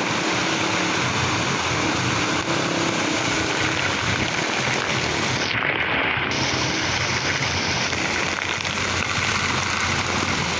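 Floodwater rushing across a road in a steady, loud wash of noise, mixed with heavy rain falling on the water.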